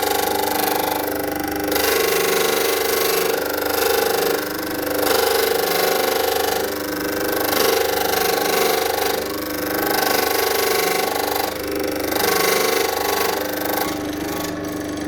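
A power sander running steadily while the edge of a round red plexiglass (acrylic) base plate is sanded against it. The sanding noise swells and eases every second or so as the piece is worked.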